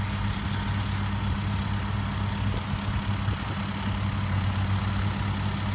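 A John Deere tractor's diesel engine idling steadily, a constant low drone.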